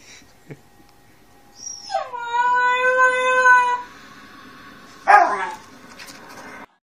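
A dog howling: one long pitched howl of about two seconds that slides down at its start and then holds steady. About a second later comes a short, harsher dog sound.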